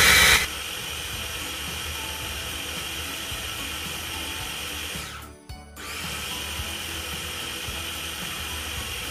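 KitchenAid mini food processor motor running as it purees thick curry paste. It is loudest for the first half second, then runs steadily at a lower level, stops briefly about five seconds in and starts again.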